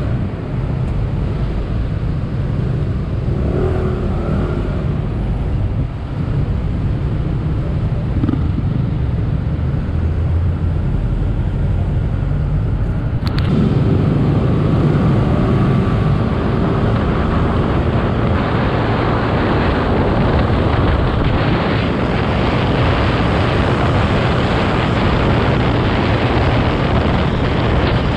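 Kymco Racing King 180 scooter's single-cylinder engine running in city traffic, heard from the rider's seat with road noise. About thirteen seconds in an abrupt cut brings a louder run, where wind rushing over the microphone builds as the scooter gathers speed.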